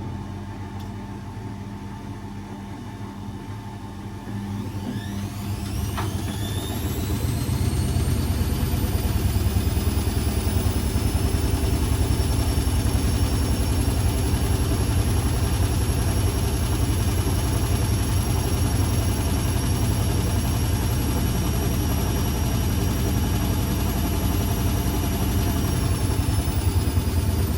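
Blomberg 240W washing machine's motor speeding up: a whine rises sharply in pitch about five seconds in, and the drum settles into a steady, louder running rumble and whine at speed. The pitch dips slightly near the end.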